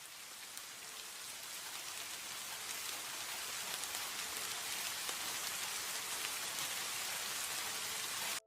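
Steady rain falling, growing louder over the first few seconds and then cutting off suddenly.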